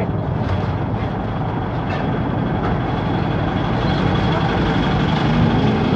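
Motor vehicle engine and road noise, a steady dense rumble, with a low engine note rising slightly near the end.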